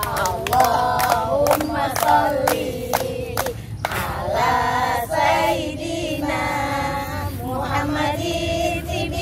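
A group of voices singing together in a sustained, wavering chorus, with sharp clicks about twice a second through the first four seconds.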